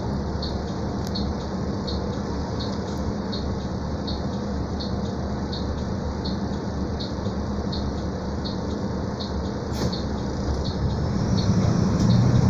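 Mercedes-Benz O-500U city bus's diesel engine idling while the bus waits at a light, heard from inside near the front, with a regular light ticking about twice a second. Near the end the engine note rises as the bus starts to pull away.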